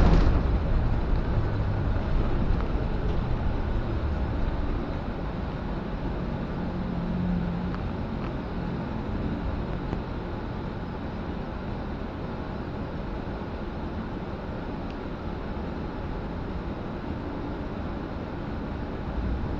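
City bus engine and cabin rumble heard from inside the passenger cabin. It is louder for the first few seconds, then settles to a steady lower level.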